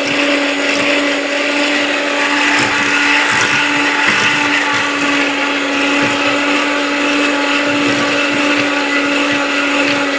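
Electric hand mixer running at one steady speed, its motor whine holding a constant pitch, as its beaters whisk an egg into creamed butter and sugar in a stainless steel bowl.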